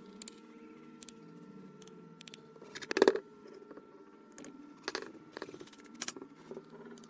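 Handling noises: a series of small sharp clicks and taps, the loudest about three seconds in, over a faint steady hum.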